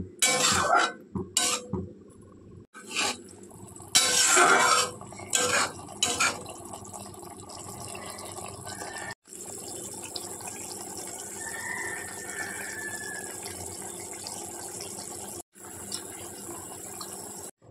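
A spatula scraping and knocking in a wok of fish curry for the first few seconds, then the curry bubbling steadily at a simmer.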